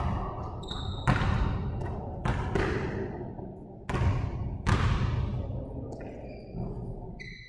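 Basketball bouncing on a hard gym floor: about six irregular thuds, each with a long echo in the large hall.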